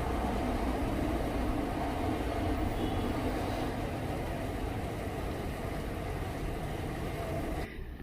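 Steady low rumble with a faint hum, which cuts off abruptly near the end.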